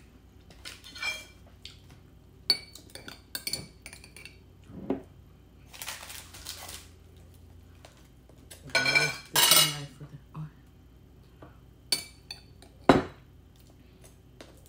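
Table knife clinking and scraping against dishes and a jam jar while strawberry jam is spread on a raisin scone: scattered light clicks and scrapes, a busier stretch past the middle and one sharp clink near the end.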